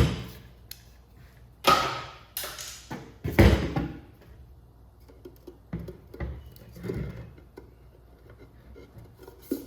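Parts of an opened electronics unit being handled on a workbench: a few loud knocks and clatters about two and three and a half seconds in, then small faint clicks of handling.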